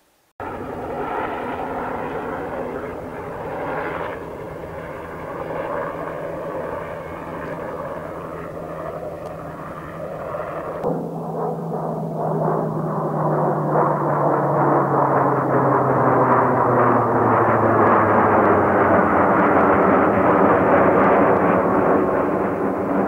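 Twin-engine F/A-18 Hornet fighter jet flying overhead with loud, steady jet-engine noise. About eleven seconds in the sound changes, and from then on its pitch falls steadily as it passes, while the noise grows louder.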